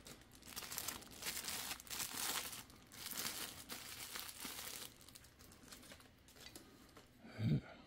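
Clear plastic bag crinkling as a ceramic figurine is handled and slid out of it, for about five seconds, then quieter handling noises; a short low thud near the end.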